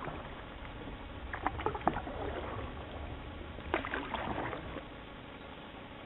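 Canoe paddles dipping and splashing in river water, with short knocks, in two bunches of strokes, one a little over a second in and another near four seconds.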